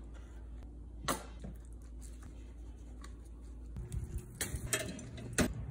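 Handling noises from barbecue prep: a single knock about a second in, then several sharp metallic clanks and knocks at an offset smoker's open charcoal firebox.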